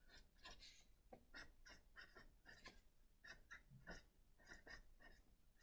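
Faint scratching of a felt-tip marker writing words on a paper worksheet, a run of short strokes.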